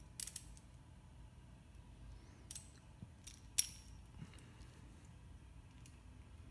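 A few sharp metallic clicks and clinks of a tool and metal parts on a Shimano XTR hydraulic brake lever as its screw is snugged up, the loudest about three and a half seconds in.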